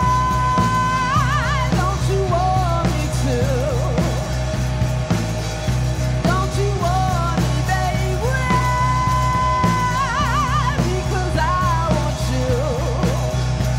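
Live rock band playing: a woman sings long held notes that break into wide vibrato, twice, over electric guitar, bass guitar and a steady drum-kit beat.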